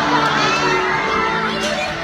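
Audience of adults and children cheering and shouting excitedly, many voices at once, over background music.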